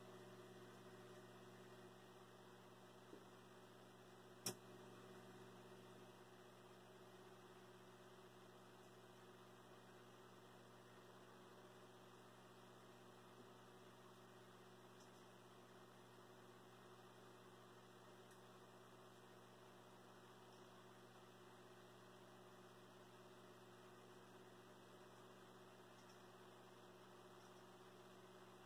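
Near silence: a faint steady electrical mains hum, with one brief click about four and a half seconds in.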